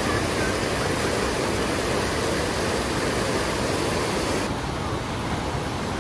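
Fast-flowing river rushing steadily. About three-quarters of the way through, the high hiss drops off suddenly and the sound becomes a little softer.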